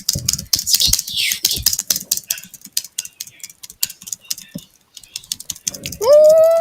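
Computer keyboard being typed on fast, a steady stream of key clicks. Near the end a voice starts a held note that rises then levels off.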